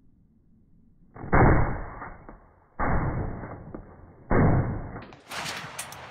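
Three gunshots about a second and a half apart, each dying away in a ringing tail; they sound muffled, with no high end.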